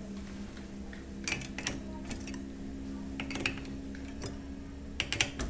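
Light metallic clinks and clicks of tools and bike parts being handled during bike assembly, a few scattered knocks with a small cluster near the end, over a steady low hum.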